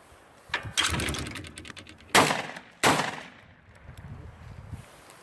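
Shotgun fired twice at a thrown clay pigeon: two loud reports about two seconds in, less than a second apart, each with a fading echo. A softer bang comes about a second in.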